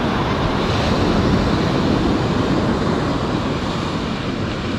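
Surf washing up the beach in a steady rush, with wind buffeting the microphone.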